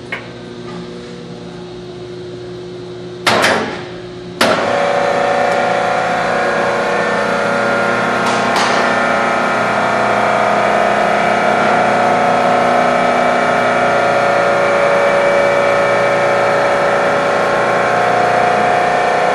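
Piqua Model 30 vertical baler's electric motor and hydraulic pump running with a steady hum. About three seconds in there are two loud knocks, and from the second one the machine runs louder and steady, the pump under load as the platen is driven down.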